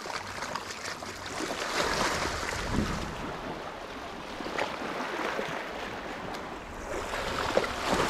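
Small sea waves washing and splashing against the shoreline. They swell about two seconds in and again near the end.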